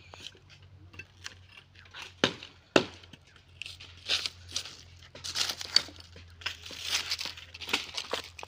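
Two sharp chops of an axe into a green branch a little over two seconds in, a half-second apart, then crackling, tearing sounds as bark is stripped from the branch and dry leaf litter is trodden and handled.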